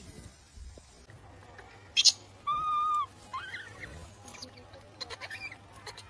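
Baby macaque calls: a clear, high coo held steady for about half a second, just after a sharp click, followed by a couple of shorter rising squeaks.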